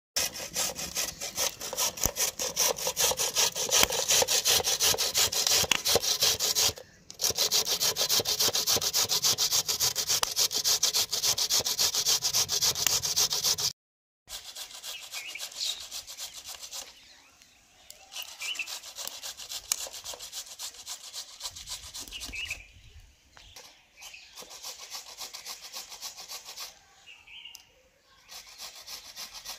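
Wood fire crackling loudly in a clay chulha. After a sudden break about halfway through, quieter rhythmic rasping of radish being grated on a steel grater.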